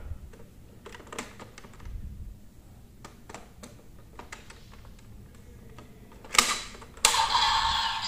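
Small plastic clicks as buckles are fitted onto a DX Desire Driver toy belt, then a louder snap about six and a half seconds in as they lock into place. About a second later the belt's electronic sound effects start up.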